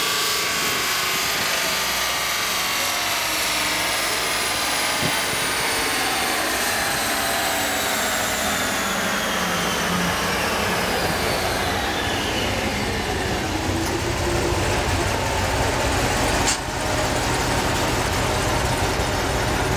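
Chevrolet Corvette C6 Z06 on a chassis dyno winding down after a pull: a whine from the spinning dyno rollers and drivetrain falls steadily in pitch over about thirteen seconds, over the low rumble of the V8 still running. A single sharp click comes near the end.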